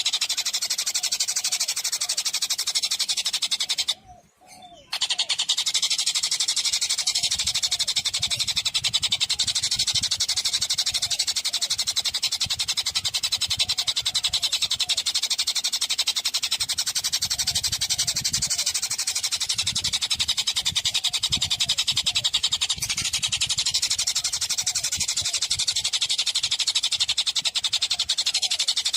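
Songbird song: a continuous, very fast high-pitched trill of rapidly repeated notes, broken by a brief gap about four seconds in.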